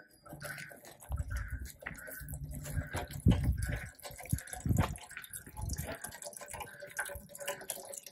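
Water dripping from a rainfall simulator's perforated pans onto two soil samples and trickling into plastic catch trays, with a few low knocks and thuds of handling. A short high chirp repeats about twice a second throughout.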